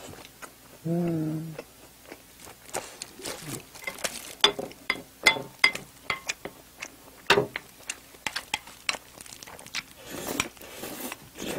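A person eating close to the microphone: a brief hummed 'mmm' about a second in, then wet chewing and mouth clicks mixed with the taps of a wooden spoon and chopsticks on a plate. Near the end comes a scraping, shovelling rush as rice is spooned from the lifted plate into the mouth.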